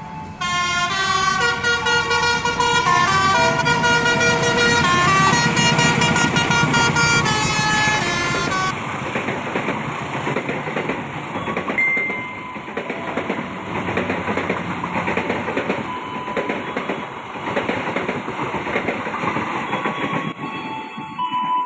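Train horn sounding a run of changing tones for about the first eight or nine seconds, followed by a steady rushing noise, with a brief tone now and then.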